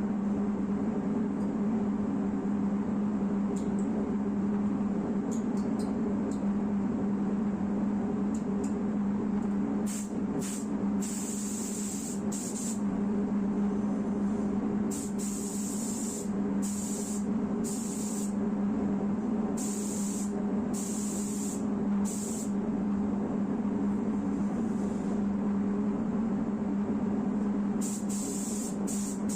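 Air spray gun hissing in short on-off passes, each about a second long, over a steady low hum of shop machinery such as a compressor or extractor.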